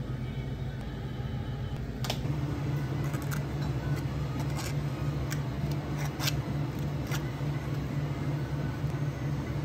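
Cafe work sounds: a steady low hum of counter equipment, with a series of sharp clicks and knocks from utensils and containers being handled, starting about two seconds in.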